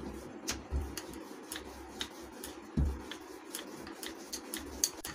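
A wooden rolling pin rolling out a ball of dough on a countertop: soft rubbing with frequent light clicks and taps and a few dull knocks.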